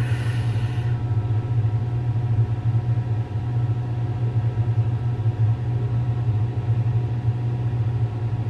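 A steady low-pitched hum with a few faint steady tones above it, unchanging throughout.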